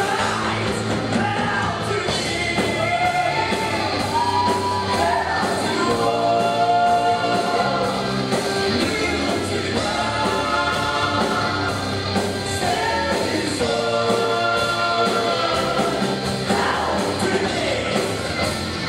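Live rock band playing with electric guitars, bass and drums, and a male singer holding long sung notes over them.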